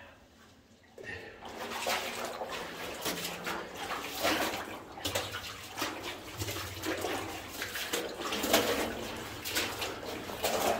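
Water sloshing and splashing as someone wades through a flooded mine tunnel, in uneven strokes that start about a second in.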